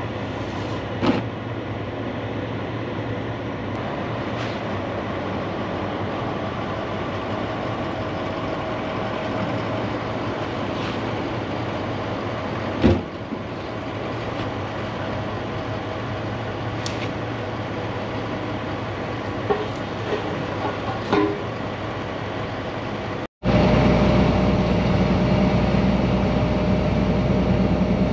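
A steady low mechanical drone with a few knocks and rustles as a heavy tarp is handled on a flatbed trailer, the loudest knock about halfway through. Near the end the sound cuts abruptly to the louder, steady drone of a semi truck driving on the highway, heard from inside the cab.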